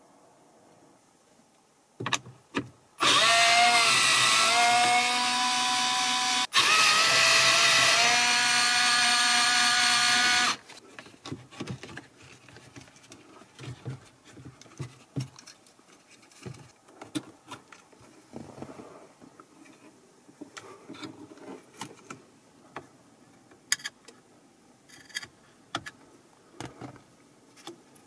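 Cordless drill-driver running in two bursts of about three and a half seconds each, with a short break between them, after a couple of clicks. Afterwards there are scattered light clicks and taps as the plastic trim and metal head unit are handled.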